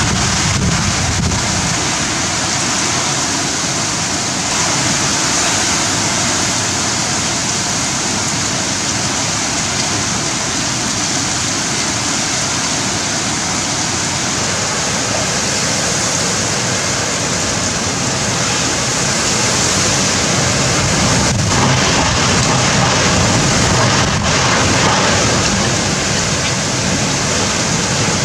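Super cyclone wind and very heavy rain, a dense, unbroken rushing noise as the gusts lash the trees and rain pours down. It grows a little louder about two-thirds of the way through.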